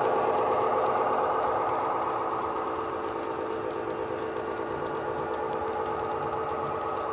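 DCC sound decoder in a model Class 43 Warship diesel-hydraulic locomotive playing its engine running sound through the model's small speaker, growing a little fainter over the first few seconds as the train draws away.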